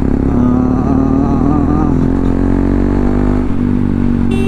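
Bajaj Pulsar NS200's single-cylinder engine pulling under throttle while riding, its pitch rising steadily and then dropping suddenly about three and a half seconds in as the revs fall. A horn beeps once near the end.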